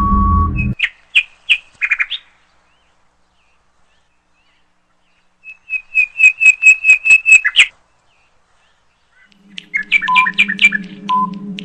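Quiz sound effects: a held beep as the music cuts off, a few chirpy tweets, then a quick run of about eight loud bird-like chirps. Near the end, background music returns with a short countdown beep about once a second.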